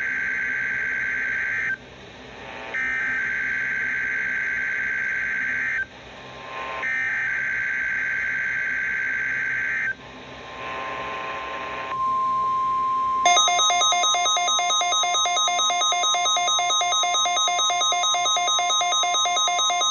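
NOAA Weather Radio test signal played through a Midland WR-120 weather radio's speaker. It begins with buzzing warbling bursts of SAME digital header data (one already under way, then two more, each about three seconds long with short gaps). About twelve seconds in, the steady 1050 Hz warning alarm tone starts, and a second later the radio's own alert alarm sets in over it, a loud, rapidly pulsing beep.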